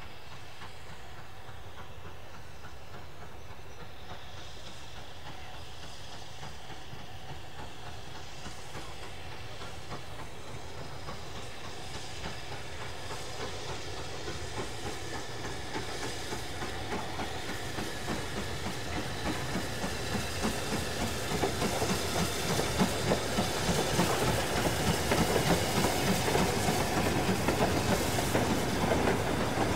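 Steam locomotive hauling a freight train of steel mineral wagons and a brake van, with steam hiss and exhaust growing louder as it approaches. In the last third the wheels of the passing wagons clatter rhythmically over the rail joints; this is the loudest part.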